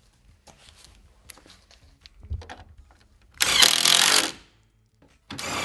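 A power driver spinning a 10 mm socket to run a grille mounting bolt down, in two short bursts: about a second long starting about three and a half seconds in, and again near the end. Light clicks of tool and parts handling come before.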